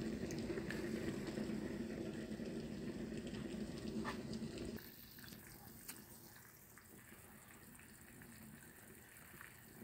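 A pot of soup boiling hard under its lid: a steady bubbling rumble. About five seconds in it cuts to a much quieter simmer with faint scattered pops.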